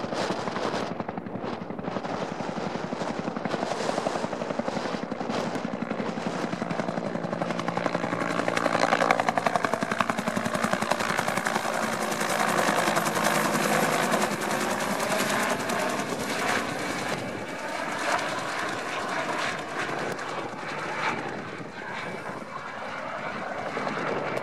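Two-bladed helicopter flying past with a sling load of stones hung beneath it, its rotor beating fast and steadily. It grows louder to a peak around the middle as it passes close, then eases off a little as it moves away.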